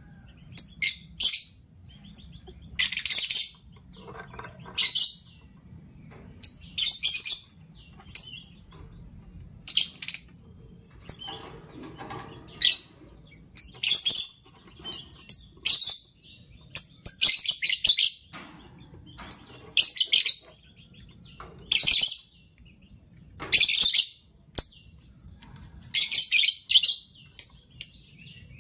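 Lovebirds chirping: short, shrill, high-pitched calls in quick clusters, coming irregularly every second or two.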